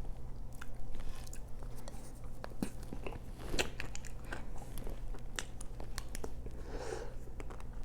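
Close-up mouth sounds of a chocolate-shelled ice cream bar being bitten and chewed: the hard chocolate coating cracks and crunches in many small, irregular clicks, over a faint steady low hum.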